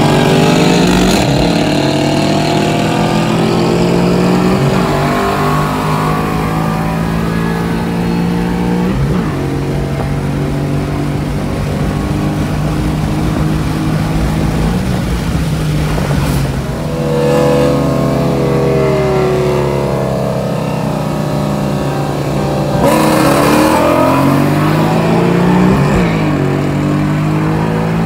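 V8 engine at full throttle, heard from inside the car, accelerating hard through the gears. Its pitch climbs steadily and drops sharply at each upshift, several seconds apart, with a rush of wind noise near the end.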